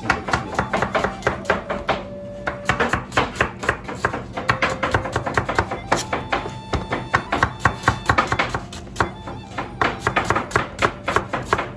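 Knife chopping onions on a plastic cutting board in quick, steady strokes, several a second, over background music.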